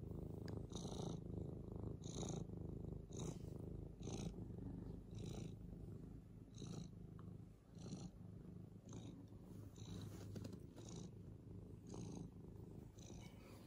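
Senior tortoiseshell cat purring close to the microphone: a steady low rumble with a soft breathy rasp about once a second as she breathes in and out.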